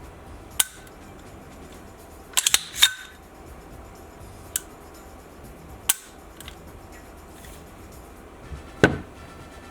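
Metallic clicks and clacks of a reassembled Desert Eagle .44 Magnum pistol being handled: single sharp clicks, a quick run of four around the middle, and a heavier clack near the end.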